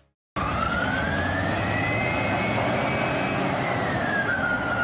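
Transition sound effect: a steady, loud rushing roar with a whine that rises in pitch and then falls again, starting abruptly just after a moment of silence.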